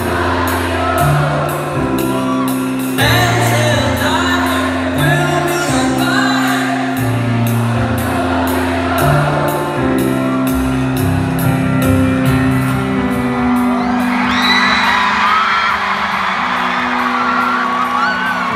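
Live band music with amplified singing heard from within an arena crowd: held bass notes under a steady beat. About two-thirds of the way through, whoops and cheers from the crowd grow louder over the music.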